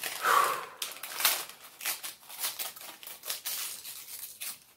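Brown kraft paper wrapping torn and crumpled by hand, a run of irregular crackles and rips as a small package is opened.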